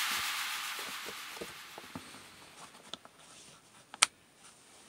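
The tail of background music fades out, then small clicks and knocks of a black plastic Glock pistol case being closed, with one sharp click about four seconds in as the lid is pressed shut.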